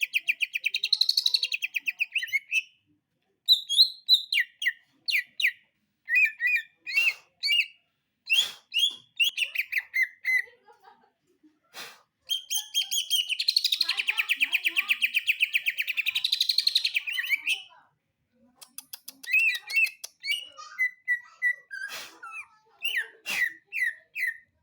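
A cucak ijo (green leafbird) singing in varied phrases. It gives two long, fast, rattling trills, one at the start and one from about halfway to two-thirds through, with short chirps and a few sharp clicks between them.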